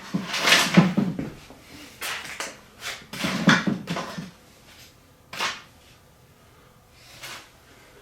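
Rustling and clattering of scrap computer wire being handled and dropped into a bucket, in several short bursts, with a sharp knock about five seconds in.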